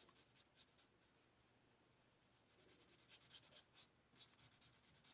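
Faint scratching of a Stampin' Blends alcohol marker's tip colouring on cardstock in quick short strokes. There is a pause of about a second and a half about a second in.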